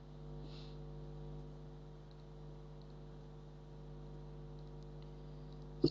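Steady low electrical mains hum picked up by the recording microphone, with a single sharp click near the end.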